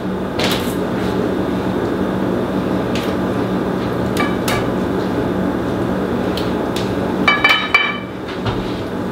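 Scattered clicks and metallic clinks as a knife and kitchen shears work at the plastic piece in a raw turkey's legs on a platter, with a quick run of ringing clinks near the end. A steady hum and hiss lies under it all.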